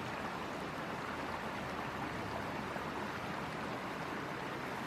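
Mountain creek water rushing and babbling over rocks, a steady even rush recorded close to the water.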